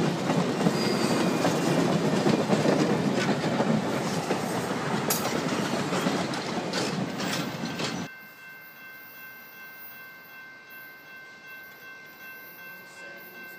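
Passenger coaches of a steam-hauled excursion train rolling past close by, wheels clattering on the rails with a few sharp clicks. About 8 seconds in, the sound cuts off abruptly to a much quieter background with faint steady high-pitched tones.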